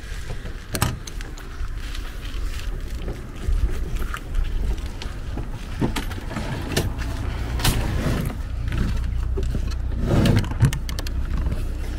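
Latches and doors of a caravan's checker-plate aluminium storage compartment being opened, then a slide-out Evakool fridge pulled out and its lid handle worked. Scattered metallic clicks and knocks sound over a steady low rumble.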